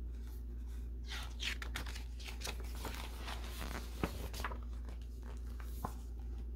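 Pages of a picture book being handled and turned: a stretch of paper rustling and crinkling, with a couple of light knocks near the end, over a low steady hum.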